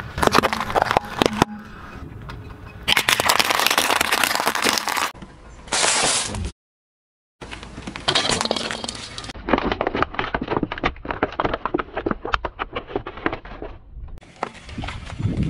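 Car tyres rolling over and crushing objects on pavement: crunching, cracking and breaking in a string of abruptly cut segments, with a silent gap about seven seconds in. In the middle stretch a rapid run of crackling clicks comes from a tyre pressing down on a plastic toy globe.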